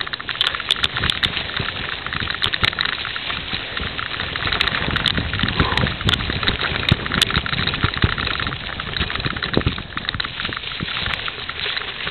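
Wind rushing over the microphone of a camera riding on a bike, with frequent rattling clicks and knocks as it rolls over a rough sandy road.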